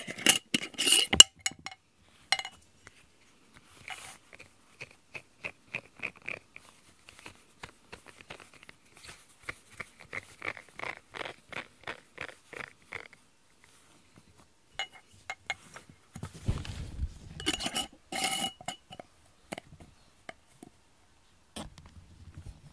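Glass jar clinking with ringing knocks as it and its lid are handled, about a second in and again around 17 to 18 seconds. Between the two, a run of light, evenly spaced ticks, about two a second, while a pink rubber grooming brush is cleared of cat fur by hand.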